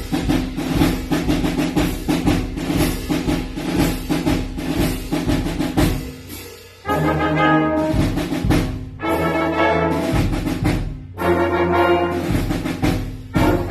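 Concert band playing a march. Rapid drumming opens it for about six seconds. Then the brass comes in with loud held chords, trombones and trumpets, breaking off briefly twice.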